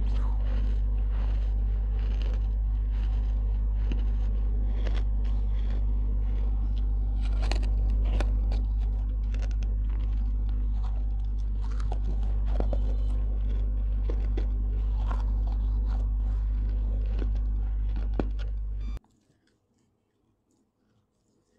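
Close-miked chewing of baked clay pot pieces: many small, sharp crunches and gritty grinding over a steady low hum. The sound cuts to dead silence about three seconds before the end.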